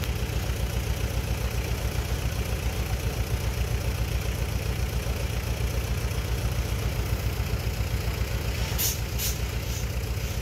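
Diesel engine of earthmoving equipment running steadily with an even low pulse. Two short hisses come close together near the end.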